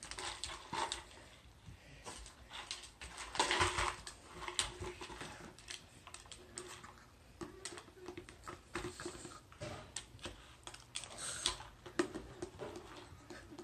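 Irregular light clicks, taps and knocks of a plastic jar being pushed and rolled along a rug by a pug's nose and paws.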